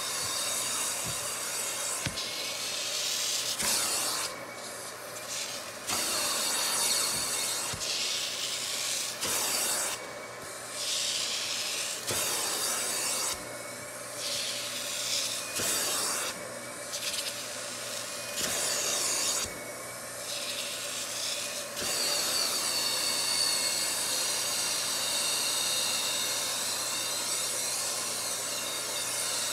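Upholstery extraction wand drawn over sofa fabric in strokes, its suction hissing steadily over a constant motor hum. The hiss thins out briefly about five times between passes, when the tool breaks contact with the cushion.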